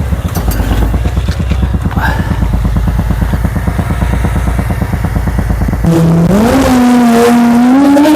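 Low rumble with a fast, even pulsing, then about six seconds in an abrupt change to the loud whine of an Air 2 drone's propeller motors, heard from a lapel mic strapped onto the drone, its pitch rising and falling as the motors change speed.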